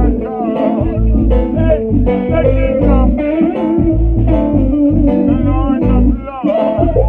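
A band playing live, guitar to the fore over a heavy low end.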